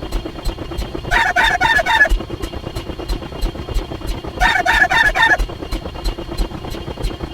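Chicken clucking sound effect: two bursts of quick clucks about three seconds apart, over a steady ticking about four times a second.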